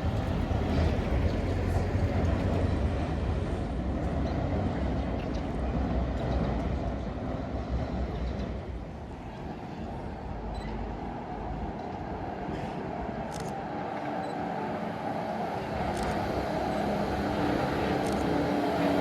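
Heritage tram running along its track with a steady rumble that eases about nine seconds in and builds again toward the end.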